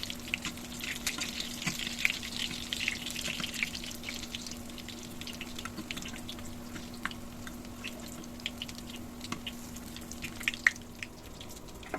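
Batter-coated pumpkin flower fritters frying in hot oil in a pan, with irregular crackles and pops. A steady low hum runs underneath and stops near the end.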